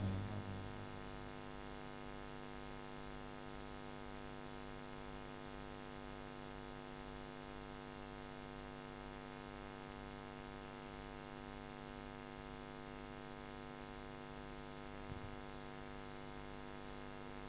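Steady electrical mains hum, a low buzz with many even overtones, with one faint bump near the end.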